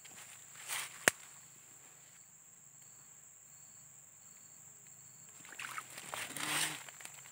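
Rustling of grass and leaves and a splash of muddy water as a fishing rod is yanked up from a small pool, loudest about six and a half seconds in. A sharp click comes about a second in, over a steady high insect whine.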